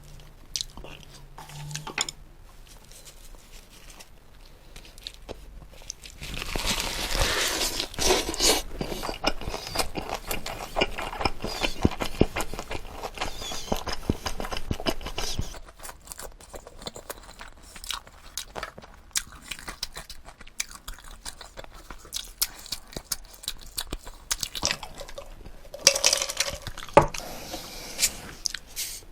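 Close-miked chewing and crunching of food, densest from about six seconds in to about halfway through, then sparser chewing with a few louder clicks near the end.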